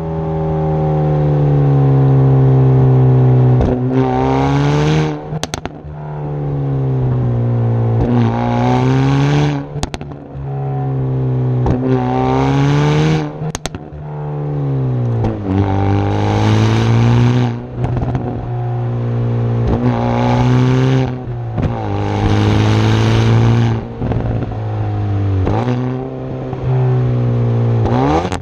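Hyundai i30 N Performance's turbocharged four-cylinder engine and exhaust, revving hard: the engine note sinks and rises again in repeated swells about four seconds apart. Several sharp exhaust cracks break in, the deliberate 'misfire' pops the car is set up to make.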